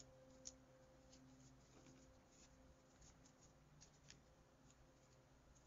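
Faint crinkling and light, scattered clicks of a paper strip being folded and creased by hand, over a faint steady hum.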